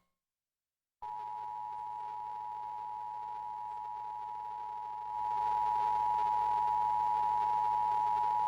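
Emergency Alert System attention signal: the two-tone 853 and 960 Hz alert tone, held steady after a second of silence and getting louder about five seconds in. It announces the severe thunderstorm warning about to be read.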